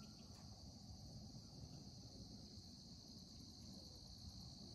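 Faint, steady high-pitched chorus of crickets, over a low rumble of outdoor background noise.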